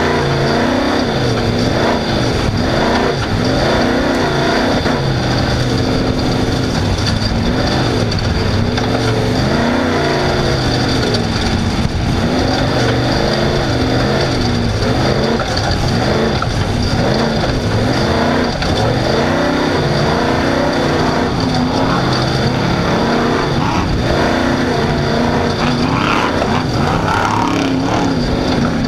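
Off-road race car's engine at racing speed, revving up and falling back over and over, its pitch rising and dropping about once a second, under a steady wash of rushing noise.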